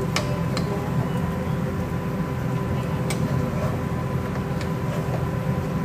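Steady low mechanical hum. Over it come a few sharp clinks of a metal ladle and wooden spoon against the pot as chicken and vegetables are stirred: two close together at the start and one about three seconds in.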